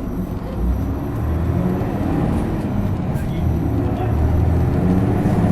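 Isuzu Erga city bus's diesel engine pulling under load, heard from on board, growing louder through the stretch as the bus accelerates.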